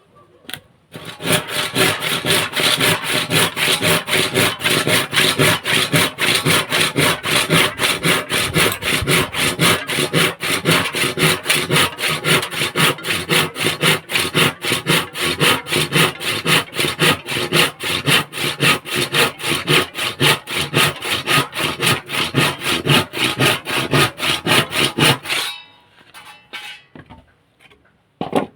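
Hand saw cutting through wood in quick, even back-and-forth strokes. The strokes stop suddenly near the end.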